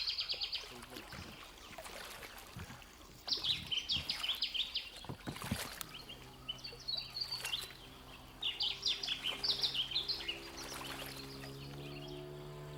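A songbird repeating short, rapid trilled phrases of high notes several times. A steady low hum comes in about halfway through and grows slightly louder toward the end.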